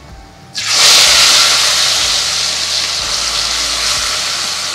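Boiled chopped beetroot and its cooking water hitting hot oil in a kadai: a loud sizzling hiss starts suddenly about half a second in and slowly fades.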